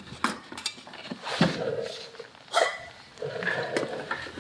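Metal camping cookware and stove gear clinking and knocking as it is handled and stowed, with a few sharp clatters and scrapes.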